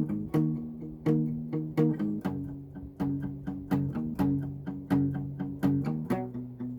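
Guitar playing a steady, repeating chord pattern with sharp note attacks about three times a second, changing chord about a third of the way in and again near the end.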